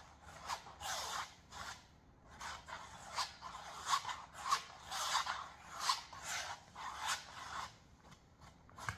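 A flat wooden stick scraping and spreading thick acrylic paint across a stretched canvas, in repeated short strokes about two a second.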